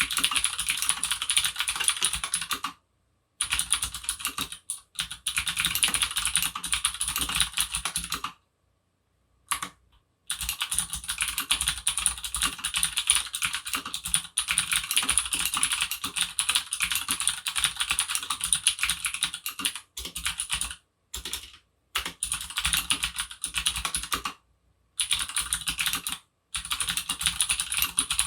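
Fast typing on a Leopold FC750R mechanical keyboard with clicky Cherry MX Blue switches on a steel plate, a dense run of sharp, bright clicks. It comes in long bursts with short pauses; the longest gap is about two seconds, around nine seconds in.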